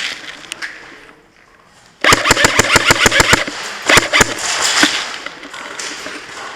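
Airsoft electric gun firing a full-auto burst of about a dozen rapid shots over roughly a second and a half, followed by a few single shots.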